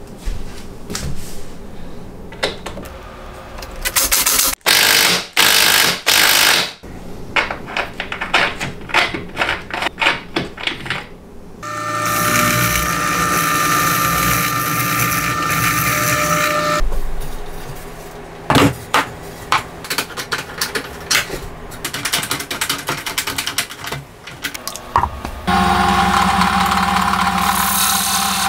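Drill press motor running while boring into a wooden board, twice for a few seconds each: about twelve seconds in, and again from near the end, the second time with a Forstner bit. Before and between the runs come many sharp clicks and knocks of the workpiece and tooling being handled.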